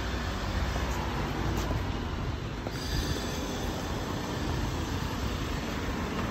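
Street traffic noise: a steady low rumble with a car driving by on the road.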